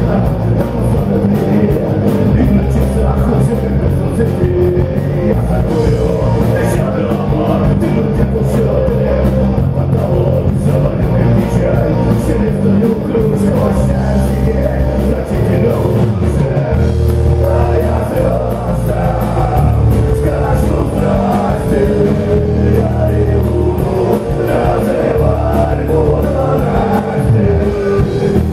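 Rock band playing live, with a singing voice over guitar, bass and drums.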